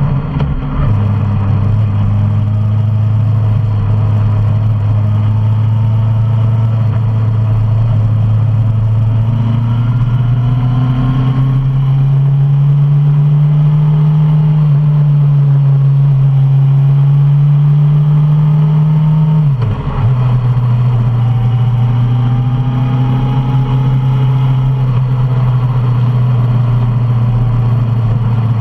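Suzuki Bandit 650's inline-four engine running steadily on the road. Its note climbs gradually from about twelve seconds in, then dips sharply for a moment just before twenty seconds and settles back to its earlier pitch.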